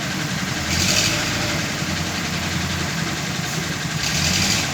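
Heavy diesel engine idling with a steady low hum. Two short hissing bursts come through, about a second in and again near the end.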